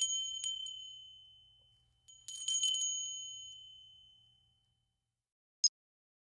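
A small metal bell rung twice, each ring a quick cluster of strikes that fades out over about two seconds, the second about two seconds after the first. A single short high blip follows near the end.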